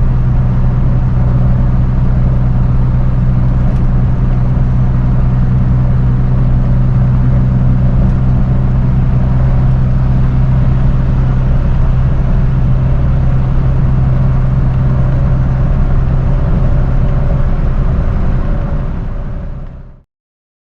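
Flatbed straight truck's engine and road noise droning steadily as it cruises, heard from inside the cab. It fades out about a second before the end.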